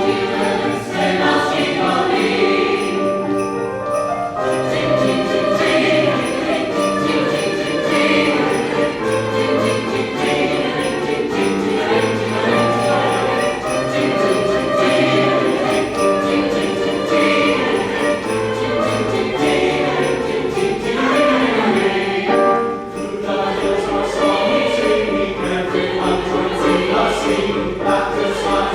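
Chamber choir singing a choral piece in parts, with sleigh bells jingling along throughout.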